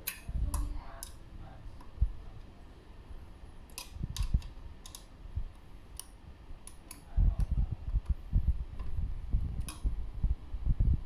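Irregular light clicks and ticks at the e-bike's rear disc brake, with a run of low knocks about seven seconds in.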